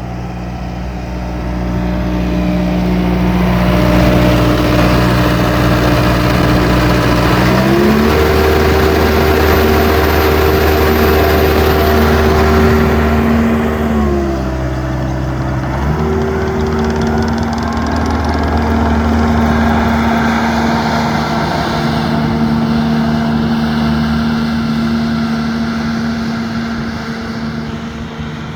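Deutz diesel engine of a 2023 Manitou 2550RT compact track loader running. It steps up to a higher engine speed about seven seconds in, drops back about halfway through, then rises again to a middle speed a couple of seconds later and holds there.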